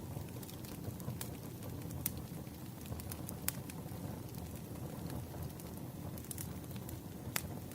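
Wood fire burning, a low steady rumble with scattered sharp crackles and pops at irregular moments.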